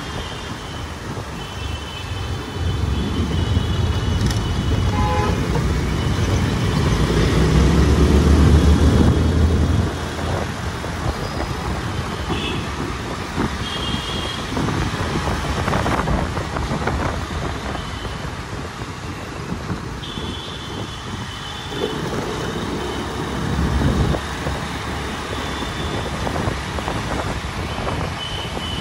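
Dense city road traffic: engines and tyre noise with many short horn toots from surrounding vehicles. A low engine rumble swells to the loudest point about eight seconds in and drops away at about ten seconds.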